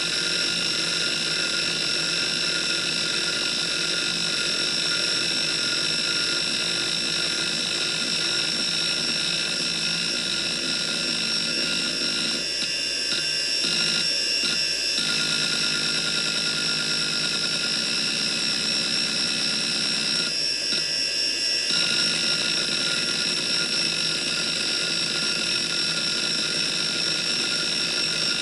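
Desktop hard disk drive running seek tests: a steady spindle whine under the continuous rapid chatter of the head actuator seeking back and forth, with a few brief breaks in the chatter near the middle and again about three-quarters through.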